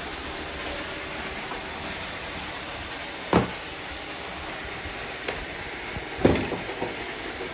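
Robot vacuums running, a steady whir of motors and brushes, with two sharp knocks, one about three seconds in and one about six seconds in.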